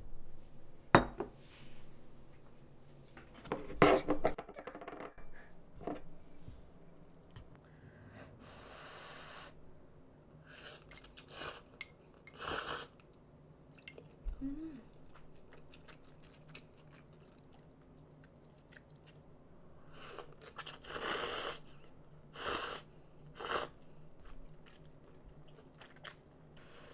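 Scattered kitchen handling sounds: sharp clicks and a ringing clink of dishes about four seconds in, then several short noisy bursts of about a second each, with quiet room tone between.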